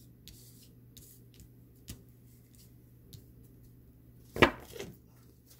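Tarot cards being drawn and handled on a table: faint ticks and taps, with one sharp knock about four and a half seconds in.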